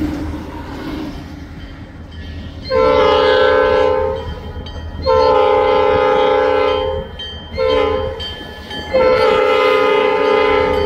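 Diesel locomotive air horn blowing the grade-crossing signal: two long blasts, a short one, then a final long blast that is still sounding at the end. A low steady rumble runs underneath.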